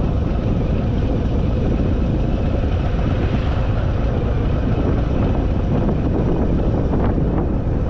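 Harley-Davidson Fat Boy V-twin running steadily at road speed, with wind rushing over the microphone.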